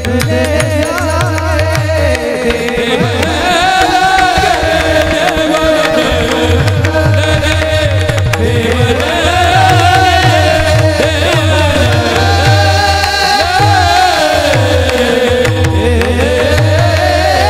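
Marathi kirtan devotional singing: a solo voice holds long, ornamented notes over a steady drone. A hand drum keeps up a constant beat underneath.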